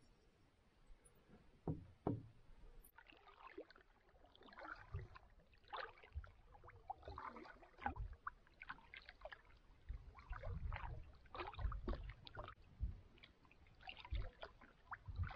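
Canoe being paddled on calm water: irregular splashes and trickles of paddle strokes and water dripping off the blade, with soft low knocks against the hull that come more often in the second half.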